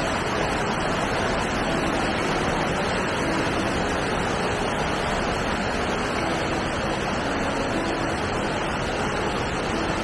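A waterfall carrying a heavy flow of water, making a steady, even rush of falling water.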